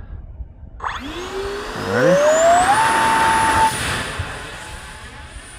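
The electric motor and fan of an RC model X-36 jet spool up with a rising whine. The whine holds steady at full throttle for about a second, then eases off and fades.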